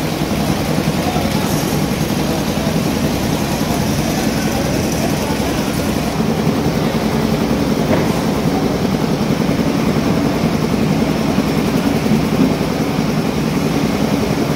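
Steady rumble of engines running amid the general din of a busy fish landing floor, with one sharp clack about halfway through.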